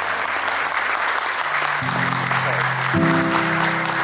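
A crowd applauding steadily, with instrumental music underneath. The music's sustained low notes come in about two seconds in and again about three seconds in.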